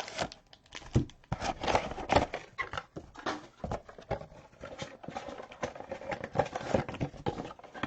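Irregular knocks, taps and rustles of trading cards and their packaging being handled on a table.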